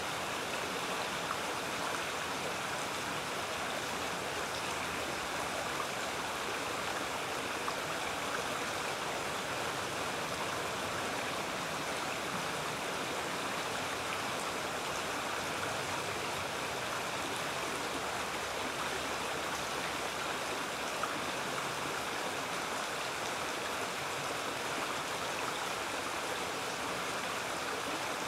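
Shallow woodland creek running steadily over a small riffle: continuous rushing water.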